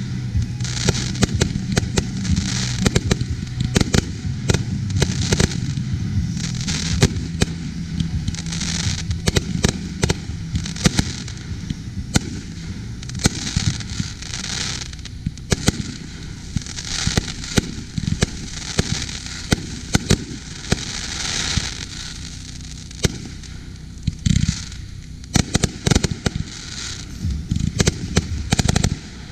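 Aerial fireworks from a ground-fired multi-shot item, launching and bursting in a rapid, unbroken run of sharp shots and reports, several each second.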